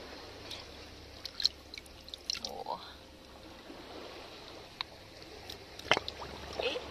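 Sea shells being handled on wet rock at the edge of a tide pool: scattered light clicks and taps, the sharpest about a second and a half in and again near the end, over a faint trickle of water.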